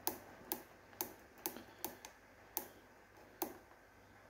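Tactile push buttons on a Dometic Waeco CFX fridge's display circuit board clicking as they are pressed, about seven faint clicks at roughly two a second. The buttons had been sticking and were just sprayed with a little WD-40; they are getting better but still stick a little.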